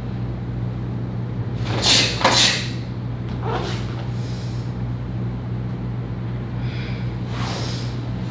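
Movement sounds of a karate kata: a few short rushing swishes of the cotton gi as punches are thrown, the loudest two close together about two seconds in and another near the end, over a steady low hum.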